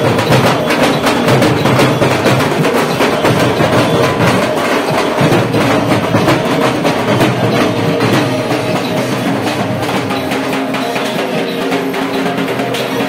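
A troupe of large stick-beaten procession drums playing together in a fast, dense, continuous rhythm. A steady pitched musical line runs underneath, and the drumming gets a little quieter about two-thirds of the way through.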